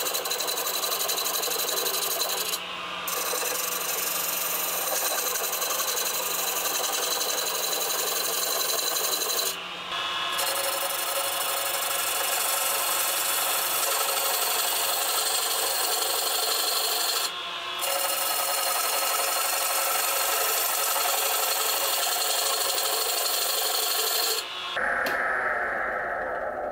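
A turning gouge cutting the outside of a spinning figured maple bowl blank on a wood lathe: a steady, loud scraping hiss of wood being peeled away, broken off briefly three times. Near the end the cutting stops and only the lathe running with the bare blank is left, fading away.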